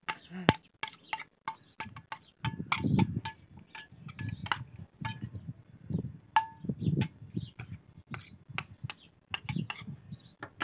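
Steel spoon stirring a thick, sticky glue-and-cream slime mixture in a stainless steel bowl. The spoon clinks against the bowl many times at an uneven pace, and the bowl rings briefly after each clink. Softer wet stirring sounds come in between.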